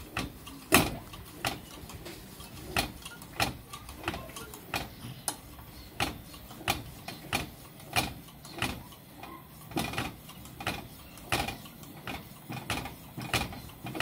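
Built-in hand air pump of a pressure lantern being worked in steady strokes, clicking about one and a half times a second, pressurising the fuel tank of the lit lantern.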